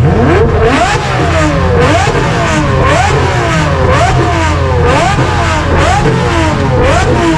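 A car engine revving again and again, its pitch climbing and falling about once a second over a steady low engine rumble.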